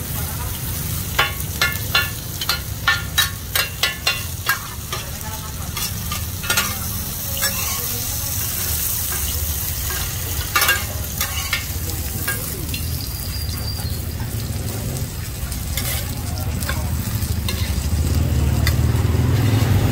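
Mussels in batter (hoy tod) sizzling in hot oil on a pan, with a metal spatula knocking and scraping against the pan in a quick run of strikes in the first few seconds and a few more later. A low rumble grows louder near the end.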